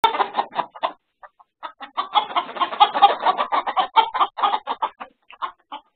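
A flock of chickens squawking and clucking in alarm at a weasel in the coop, many short calls overlapping, with a brief lull about a second in and the densest flurry from about two to five seconds in.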